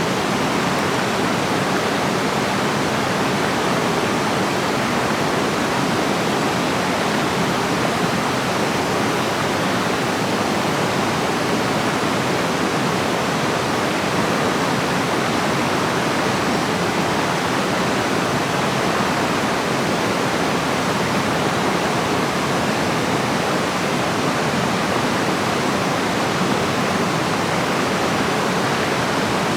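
Running water rushing steadily, the even sound of a stream or small waterfall.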